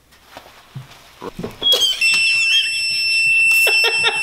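Digital torque wrench's electronic alert, a steady high beep starting about two seconds in and holding for about three seconds while a bolt is angle-torqued; the wrench gives this beep as it reaches its set target. A few short knocks come near the end.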